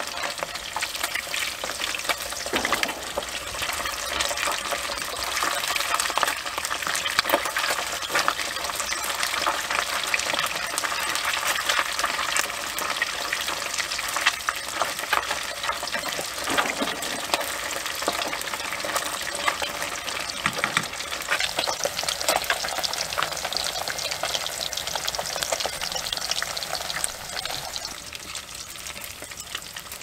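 Fish pieces frying in hot oil in a wok: a steady, dense crackling sizzle as a wooden spoon ladles the oil over them. The sizzle eases off a little near the end.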